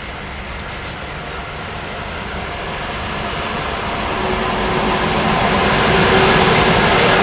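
Electric locomotive hauling a container freight train, approaching: its running noise grows steadily louder, and a steady humming tone joins about four seconds in as it nears.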